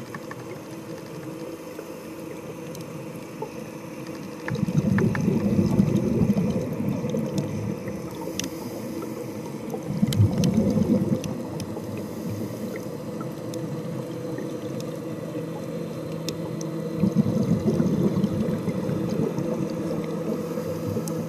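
A scuba diver breathing through a regulator underwater: three loud bursts of exhaled bubbles, about six to seven seconds apart, over a steady low hum with scattered faint clicks.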